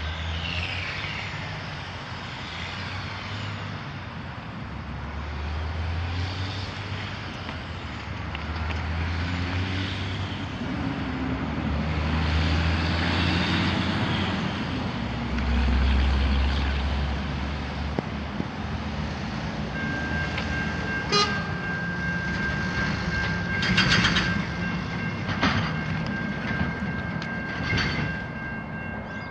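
Road traffic with heavy trucks passing, a low rumble that swells and fades. About twenty seconds in, a level crossing's warning bell starts ringing steadily, with a few sharp clicks over it.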